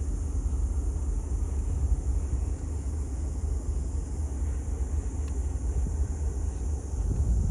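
Wind buffeting the microphone: a low, fluttering rumble with no steady engine tone in it.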